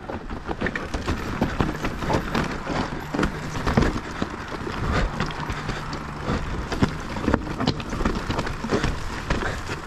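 Mountain bike riding over a rough trail: tyres rolling on dirt with a constant, irregular clatter of small knocks and rattles from the bike.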